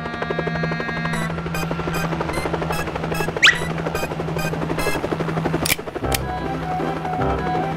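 Background music over the chopping of a cartoon helicopter's rotor, with a brief swooping sound effect about three and a half seconds in and two sharp clicks about six seconds in.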